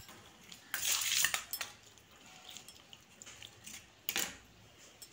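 Stainless steel bowl and kitchen utensils clinking and clattering in a few short bursts, the loudest about a second in and another near the end.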